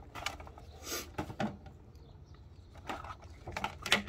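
A plastic packaging tray and its contents being handled: a few scattered clicks and knocks, a little louder near the end.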